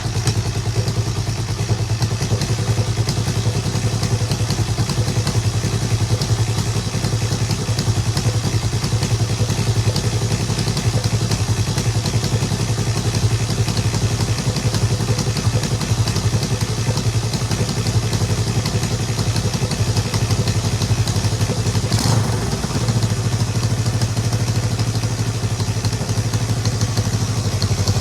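Honda CJ360's parallel-twin four-stroke engine idling steadily just after a kick start, with the fuel petcock still closed. One sharp click sounds about three-quarters of the way through.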